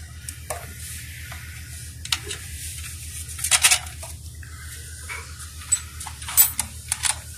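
Scattered clicks and knocks of the hard plastic EPIRB float-free bracket and its small metal parts being handled and set back together, over a steady low hum.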